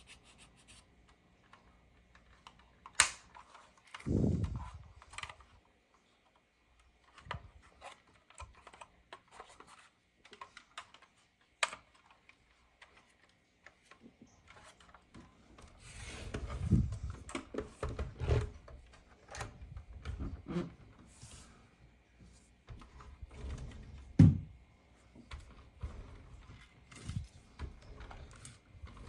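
Scattered clicks, taps and dull knocks of a 1:18 die-cast model car and its packaging being handled, with quiet gaps between. A sharp click comes about three seconds in and a loud knock about three-quarters of the way through.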